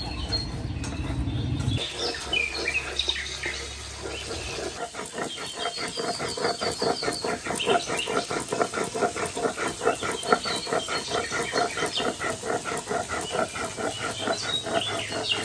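Spices being ground on a stone slab (shil-nora): the hand-held grinding stone is rubbed back and forth over wet mustard seeds, cumin and green chillies, giving a quick, even scraping rhythm that starts about five seconds in.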